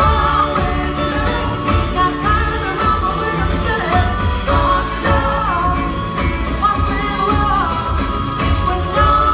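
Live band playing a pop-soul song: a woman sings lead over electric guitar, keyboards, drums and upright bass.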